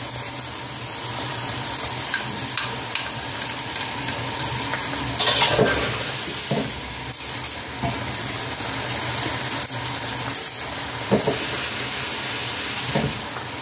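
Fish and tofu balls sizzling and bubbling in a frying pan of oil and water at a hard boil, with a few brief pops along the way.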